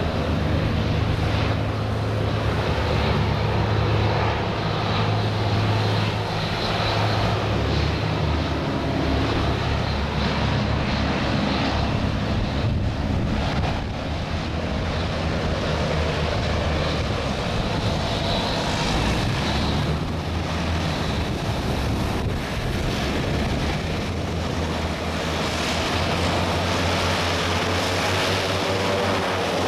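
Hovercraft's engines and air propellers running with a steady, droning hum, with wind buffeting the microphone.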